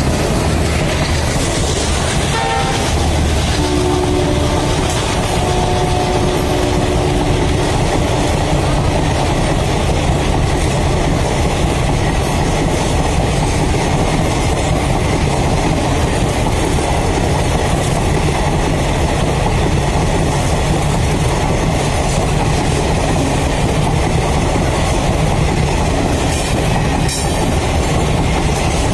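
Palace On Wheels passenger coaches rolling past at speed: a loud, steady rumble and clatter of steel wheels on the rails. A train horn sounds during the first several seconds.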